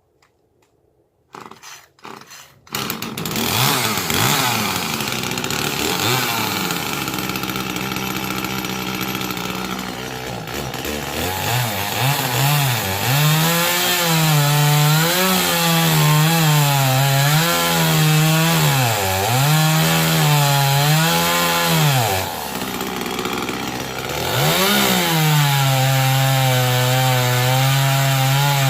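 Chainsaw cutting a tree limb: after a couple of short bursts it runs loudly and steadily, and from about halfway its engine pitch repeatedly sags and recovers as the chain bites into the wood, before holding a steady high pitch near the end.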